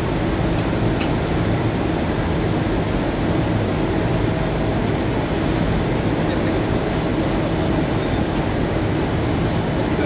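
Rubber profile extrusion and microwave vulcanization production line running: a steady machine noise with a constant low hum.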